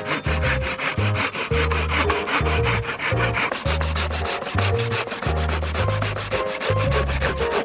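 Japanese pull saw (Silky Woodboy) cutting through a round wooden rod in a plastic miter box, with continuous rasping strokes. Background music with a steady beat plays underneath.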